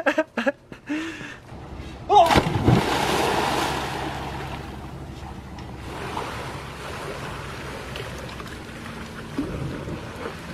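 A loud splash into a swimming pool about two seconds in, fading into steady sloshing water noise.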